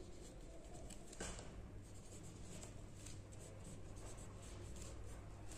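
Fineliner pen writing on paper: faint scratching of handwriting strokes.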